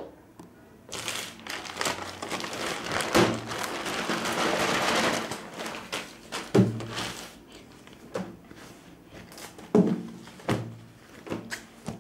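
A thin plastic packing bag rustling and crinkling for several seconds as a jersey is pulled out of it, followed by a few dull knocks of handling against a tabletop.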